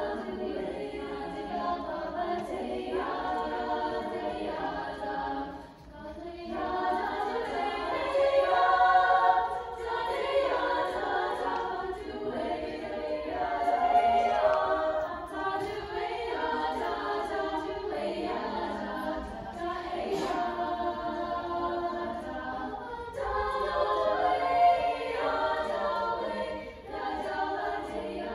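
A girls' choir singing together, the phrases swelling louder several times.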